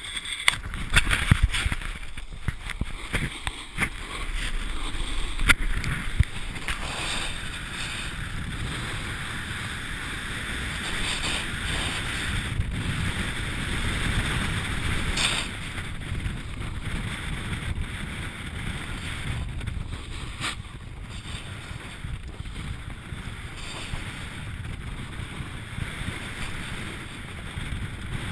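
Steady hiss of sliding downhill over snow, with wind rumbling on the microphone and a few sharp knocks in the first several seconds.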